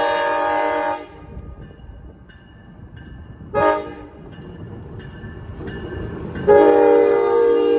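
Horn of an Amtrak Siemens Charger SC-44 passenger locomotive sounding for a grade crossing: a long chord that cuts off about a second in, a short blast in the middle, and another long blast starting near the end. Between the blasts a bell dings steadily, about every two-thirds of a second.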